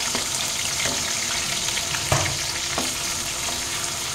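Tomatoes sizzling as they fry in hot oil with cumin and garlic, a steady hiss, with a spoon stirring and clacking against the pan. The sharpest clack comes about two seconds in.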